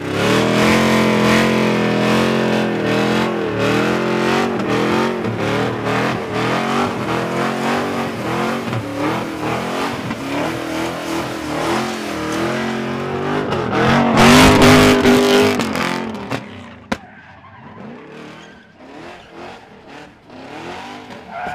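Engine-swapped Nissan 350Z drift car running at high revs during a burnout, its pitch wavering up and down as the rear tyres spin. It gets louder for a couple of seconds about two-thirds of the way through, then fades as the car drives off into its tyre smoke.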